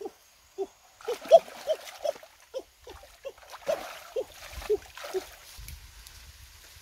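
Puppies yipping in short, high calls, about two a second, stopping about five seconds in. Water splashes under them as hands grope in a shallow muddy creek.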